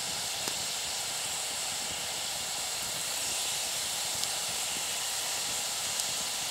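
Water in a birch bark bowl bubbling and hissing steadily around a hot rock heated in the campfire, the rock bringing the water toward a boil.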